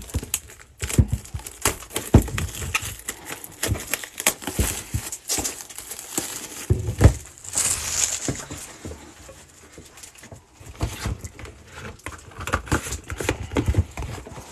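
Plastic shrink wrap crinkling and tearing as it is stripped off a trading-card hobby box, amid irregular cardboard knocks, taps and scrapes as the box is opened and a pack is pulled out.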